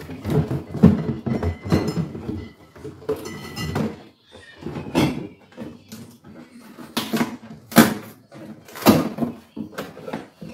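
Irregular knocks, clunks and scraping of containers and fittings being handled and wiped inside an open refrigerator during cleaning.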